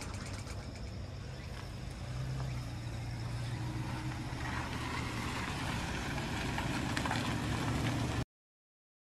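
Toyota HiAce van's engine running at low speed as the van pulls in, a steady low hum that slowly grows louder, cut off abruptly about eight seconds in.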